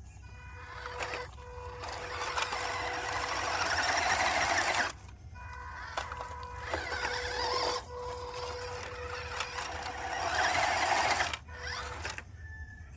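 Small electric motor of an RC car whirring, with the wheels churning over rough ground in two long bursts, the first about two seconds in and the second near the end.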